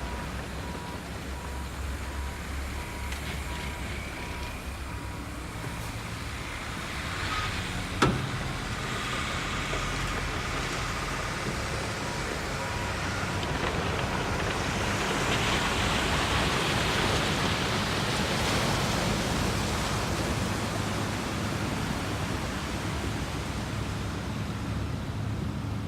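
Heavy machinery engines running steadily, with a faint repeated beep in the first few seconds and a single sharp bang about eight seconds in. Later a broad rushing noise swells up and fades back.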